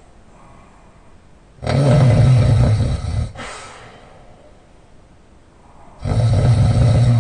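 Loud open-mouth snoring from a person asleep on his back: two snores about four and a half seconds apart, each lasting about a second and a half with a low buzzing drone, the first followed by a short, softer breath.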